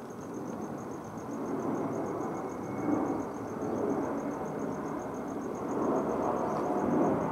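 A cricket chirping in a fast, even, high-pitched pulse, over a louder low rushing noise that swells after about a second and again near the end.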